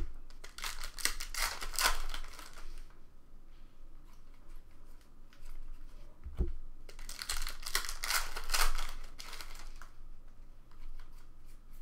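A stack of trading cards flipped through by hand: two runs, each a few seconds long, of rapid light clicks and slides as card edges snap past one another. Between them, a little past the middle, comes a single soft thump.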